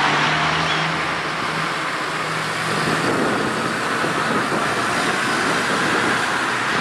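Farm tractors driving past one after another, their diesel engines running steadily.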